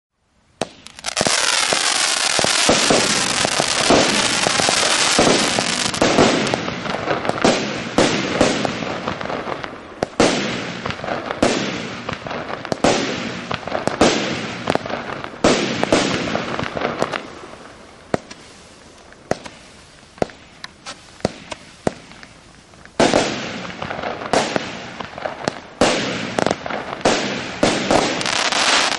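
Estalella 'Anaconda' firework cake (batería) firing. It opens with a dense, continuous run of shots, then settles into single shots bursting about every one and a half seconds. A fast volley of shots comes near the end.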